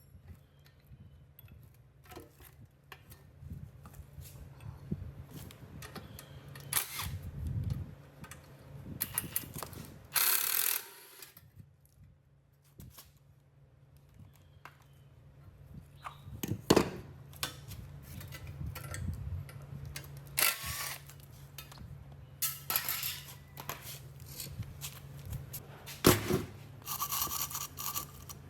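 Workshop hand-work on metal parts: scattered clicks, knocks and scrapes over a steady low hum, with a short hiss about ten seconds in and a stretch of scraping near the end.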